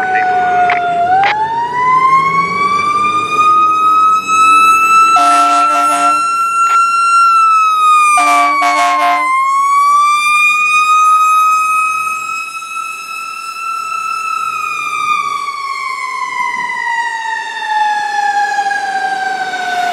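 Fire engine siren on a slow wail, its pitch rising and falling over several seconds at a time, with two short horn blasts about five and eight seconds in.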